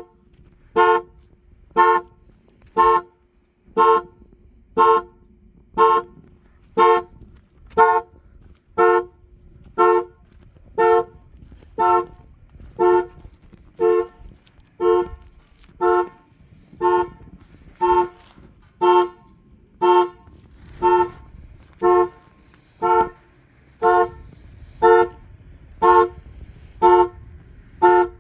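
1994 Buick Park Avenue's car alarm sounding the car's horn in short, evenly spaced honks, about one a second.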